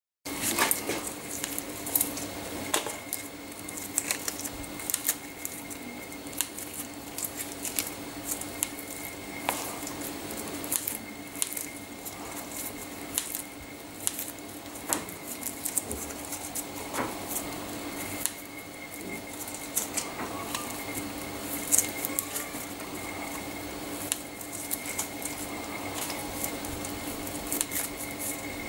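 Kitchen scissors snipping soft marshmallows into small pieces over a bowl, an irregular run of short snips and clicks of the blades, with the odd light knock against the bowl. A steady low hum runs underneath.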